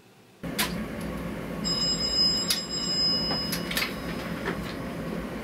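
Clicks and knocks of a phone being handled while a call is placed. A steady, high electronic tone of several pitches sounds for about two seconds, starting a little over a second in.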